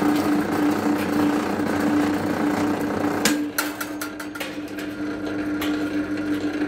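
Electric cable-stripping machine running with a steady motor hum while an insulated copper cable is fed through its rollers and blade; the stripping noise stops a little over three seconds in. A run of sharp clicks and knocks follows as the cable is handled.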